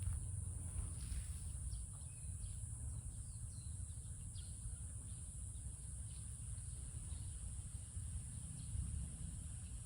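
Outdoor ambience: a steady high-pitched insect drone, a few short bird chirps, and a low rumble underneath.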